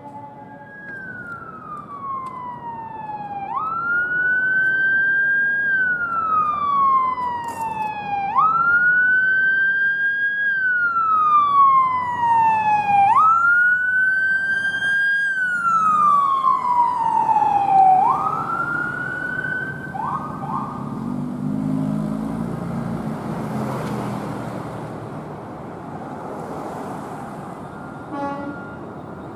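Emergency vehicle siren on a wail: about four cycles, each jumping up quickly and sliding slowly down, growing louder as it approaches. Roughly two-thirds of the way through it cuts off after a couple of short chirps, leaving the rumble of the passing vehicle.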